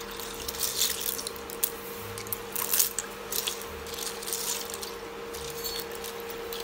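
Freshwater snail shells clicking and rattling against each other and the steel bowl as a hand stirs them in water, with wet sloshing, in irregular bursts that are busiest in the first three seconds or so. A steady electrical hum runs underneath.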